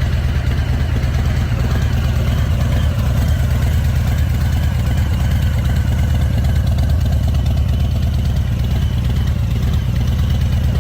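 Harley-Davidson Fat Boy's air-cooled V-twin engine idling steadily.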